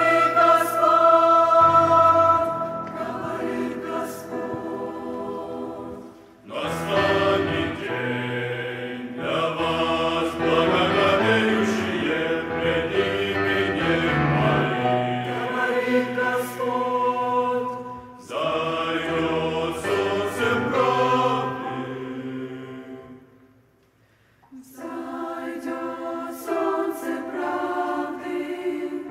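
Large mixed youth choir of men's and women's voices singing a Christian hymn in Russian, phrase by phrase with short breaks between. Near the end it stops for about a second, then sings on.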